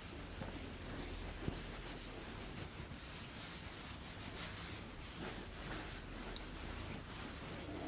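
A felt board duster wiping marker writing off a whiteboard in repeated rubbing strokes, with one short knock about one and a half seconds in.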